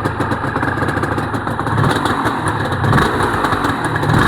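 Honda NSR250R-SP MC18's two-stroke V-twin ticking over steadily through JHA expansion-chamber pipes.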